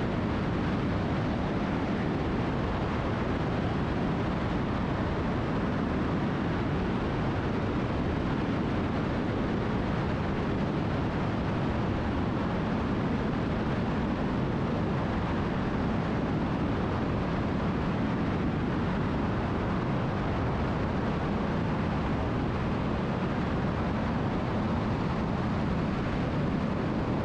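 Steady cabin drone of a Cessna T310R twin's engines and propellers at reduced power on approach, an even noise that holds constant throughout.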